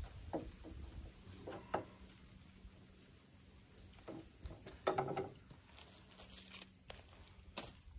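Small gear being handled by hand: scattered rustles, clicks and light knocks, with the loudest cluster about five seconds in.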